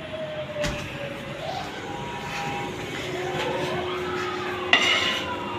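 A motor engine running in the background, its pitch sinking slowly and then rising twice as it revs. There is a short crackle of handling about five seconds in.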